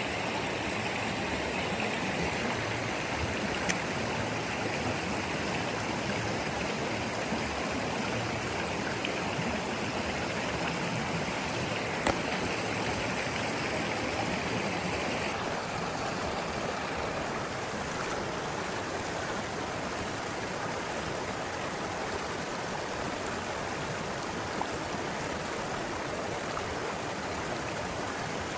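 River water rushing steadily, with a few single sharp taps, the loudest about twelve seconds in.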